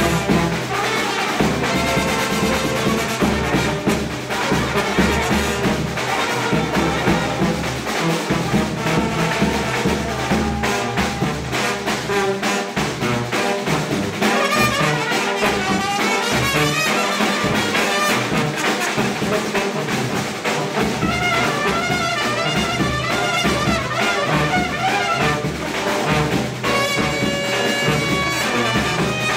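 Serbian brass band playing: trumpets and other brass over a steady beat.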